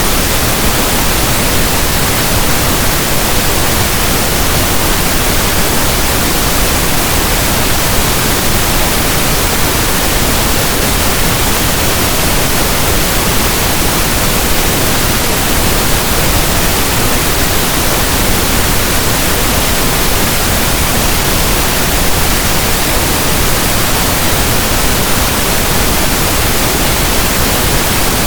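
Steady synthetic pink noise: an even, unbroken hiss like a radio tuned between stations, holding the same level throughout.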